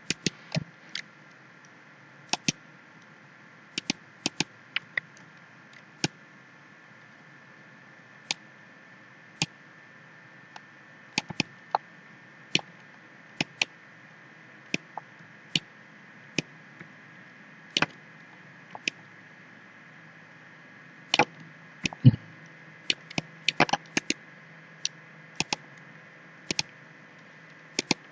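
Computer mouse clicking at irregular intervals, single clicks with quick double clicks and a cluster of clicks about three quarters of the way through, over a faint steady hum.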